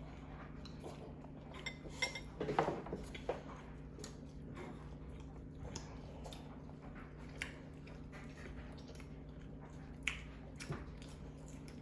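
Scattered light clinks and taps of eating utensils against bowls and plates at a meal, with a few louder knocks about two and a half seconds in and again near ten seconds, and some chewing. A steady low hum runs underneath.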